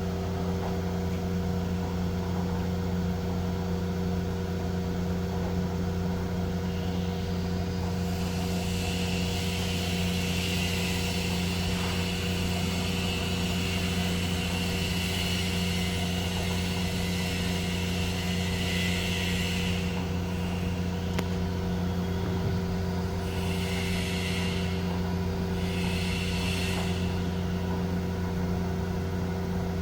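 Mighty Viper 1332 AG CNC vertical machining center running under power: a steady machine hum. A higher hiss comes in about a quarter of the way through and drops out about two-thirds through, then returns in three short spells near the end.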